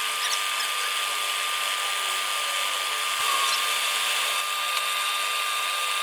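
Metal lathe running with the cutting tool dug into the workpiece: a steady whine with a constant high tone.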